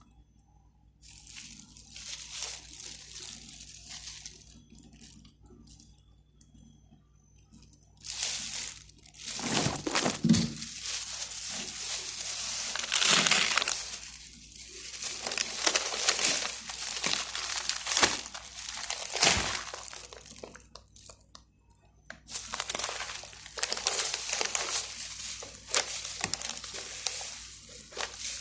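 Irregular spells of crinkling and rustling, as of plastic bags and wrapping being handled, with small knocks in between.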